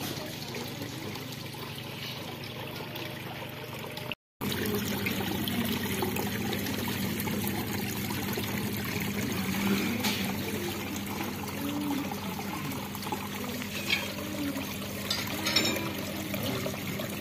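Water from a small decorative waterfall trickling and splashing steadily down an artificial rock wall. The sound cuts out for a moment about four seconds in.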